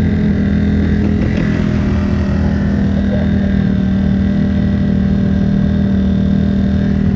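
Single-cylinder four-stroke dirt bike engine (2007 Kawasaki KX250F) running steadily at a constant pitch, on a bike its rider fears is overheating.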